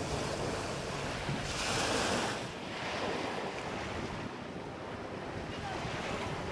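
Small sea waves breaking and washing up a sandy beach, with one louder wash about two seconds in.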